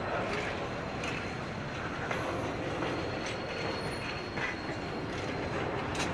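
Pacific National 81 class diesel locomotives hauling an empty train of grain hoppers at walking pace, engines running, with wagon wheels knocking over the rail about once a second and a faint thin wheel squeal.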